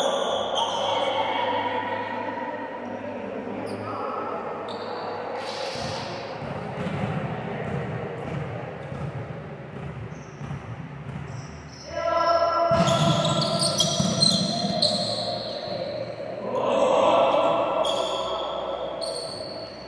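A volleyball being struck and bouncing on a sports-hall floor, with a few sharp hits standing out, among players' voices.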